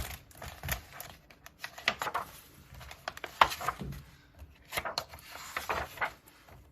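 Paper handling: a picture book's pages being turned, with irregular rustles and small clicks.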